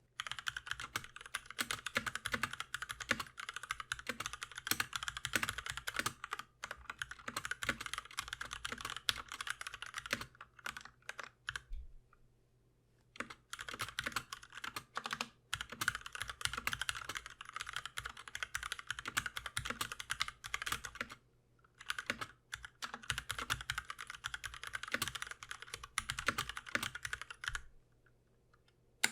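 Typing on an Akko Neon 3061S 60% mechanical keyboard fitted with Gateron White linear switches (35 g, light) and PBT double-shot keycaps: quick runs of keystrokes, stopping briefly a few times.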